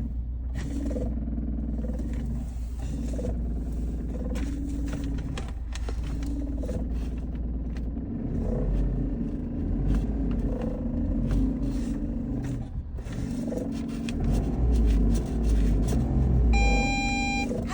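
Suzuki Every / Nissan Clipper kei van running at idle with the abnormal noise of a failing clutch thrust (release) bearing, a sign the bearing needs attention. The low rumble grows louder about halfway through. A short electronic beep sounds near the end.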